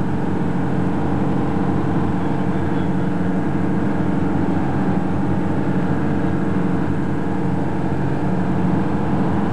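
Fishing boat's engine running steadily underway, an even drone with a low hum.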